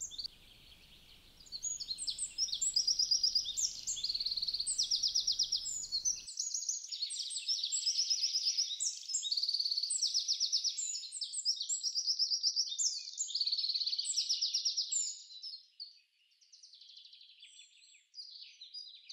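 Birds chirping: many rapid high chirps and trills in repeated phrases, fading out near the end.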